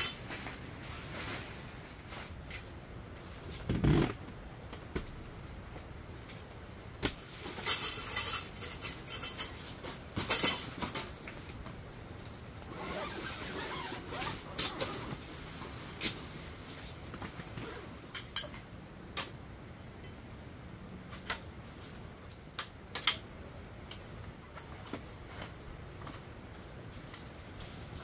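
Handling of a folding camp table and its carry bag: a thump about four seconds in, then a zipper pulled open in two quick runs about eight and ten seconds in. Scattered knocks, clicks and rustles follow as the table is taken out and unfolded.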